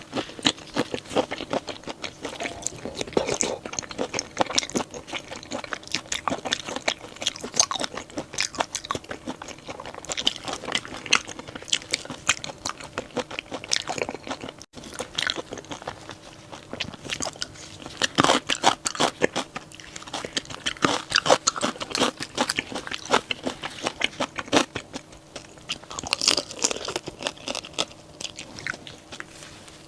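A person chewing and biting crunchy seafood close to the microphone: many crisp crunches in quick succession, with a very brief gap about fifteen seconds in.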